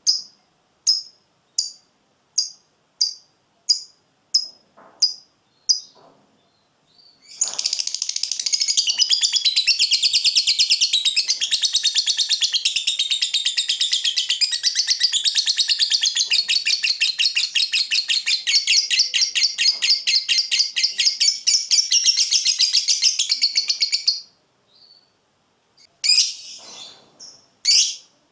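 Lovebird giving single sharp chirps about twice a second, then breaking into a long, rapid chattering trill, the 'ngekek panjang' prized in fighter lovebirds, which runs for about seventeen seconds and stops suddenly. A few more chirps follow near the end.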